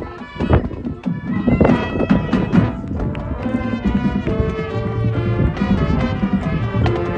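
High school marching band playing, brass with percussion. Sharp drum hits come in the first few seconds, and the brass settles into held chords about four seconds in.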